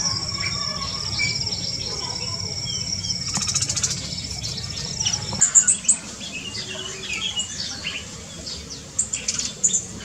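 Small aviary birds chirping and twittering. For about the first five seconds a steady high trill runs under the calls; after that, sharp, high chirps come in quick clusters.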